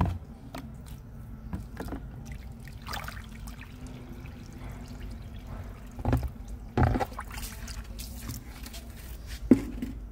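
Water poured onto freshly sown potting soil, trickling and splashing as it floods the pot. There are louder sudden sounds about six and seven seconds in and a sharp one near the end.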